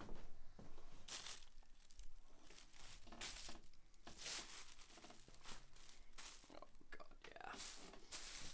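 Tissue paper crinkling in irregular bursts, with the soft rustle of a shirt being lifted out and unfolded by hand.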